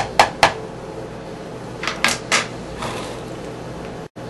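Kitchenware knocking and clicking while an ingredient is added: three sharp knocks in quick succession, then three or four more about two seconds in.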